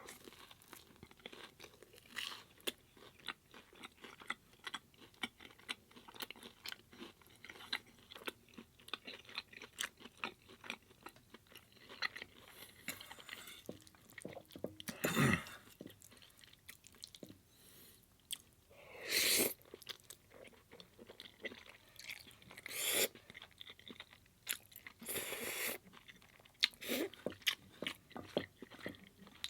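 Close-miked eating sounds: a person chewing spaghetti and garlic bread sticks, with a steady run of small wet chewing clicks. A few louder crunchy bites come about halfway through and near the end.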